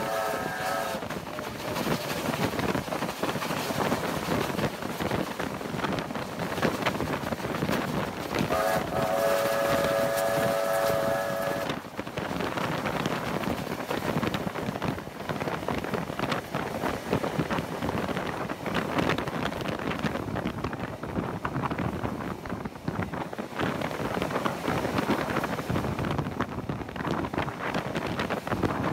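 Steam locomotives 3016 and 3642 running side by side at speed: a steady rush of exhaust, wheels and rails with wind noise on the microphone. A chord-toned steam whistle sounds at the very start and again for about three seconds near the nine-second mark.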